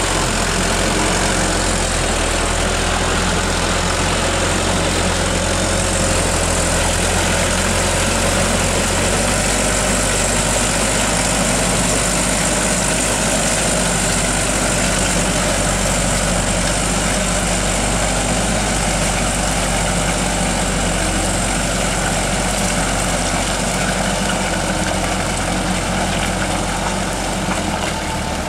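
Diesel engine of a heavily loaded light truck running steadily under load as it crawls through deep mud.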